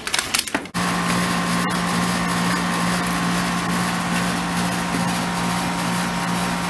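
A steady machine hum with a constant low tone, starting abruptly just under a second in after a moment of rustling handling noise.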